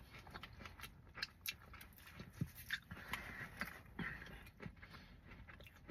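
Faint eating sounds: chewing, with scattered light clicks and ticks as an ear of corn is handled in an aluminium foil pan.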